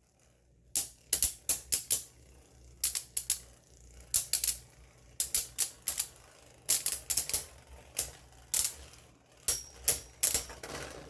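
Beyblade Burst spinning tops clashing in a plastic stadium. Clusters of sharp clicking knocks come at irregular intervals, with short quieter gaps between.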